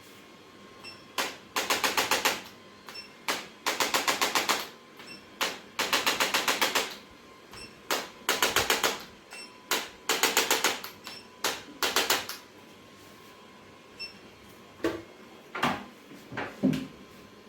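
Handheld percussive chiropractic adjusting instrument firing in short bursts of rapid clicking strokes, about ten strokes a burst, one burst roughly every second. The bursts stop about twelve seconds in, and a few single knocks follow near the end.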